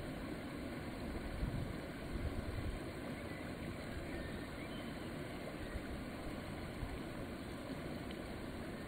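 Steady, low, unpitched background rumble with no clear events.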